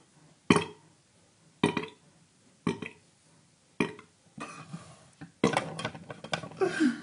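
Four short, loud vocal bursts about a second apart, each cut off quickly, then a longer run of voice-like sound near the end.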